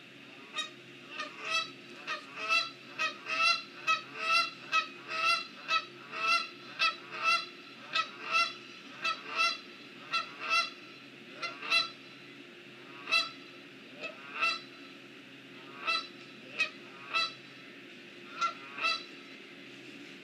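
Great blue heron breathing heavily from the heat: a long run of short, nasal, honk-like rasps, about two a second, that thins out into spaced groups after the first twelve seconds or so.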